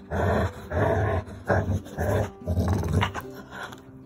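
Labrador retriever growling in play while tugging on a rope toy, in rough pulses, about six of them.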